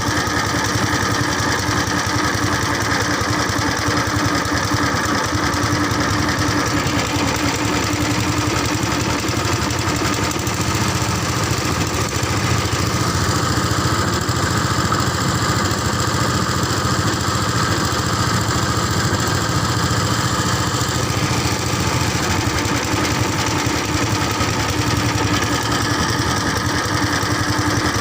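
An engine running steadily at an even speed, with a constant drone and no changes in pace.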